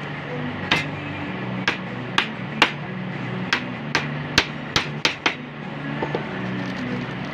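A hammer knocking on wood about ten times in quick, irregular strikes, then a few lighter taps. The strikes are driving the glued pieces of a wooden cabinet door together.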